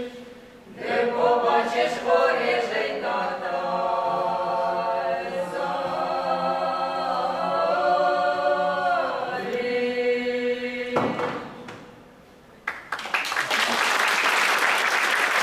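Mixed men's and women's folk choir singing a Ukrainian Cossack song a cappella in several voice parts, with a short breath pause just after the start. The closing phrase ends on a long held chord about eleven seconds in, and a second or so later the audience breaks into applause.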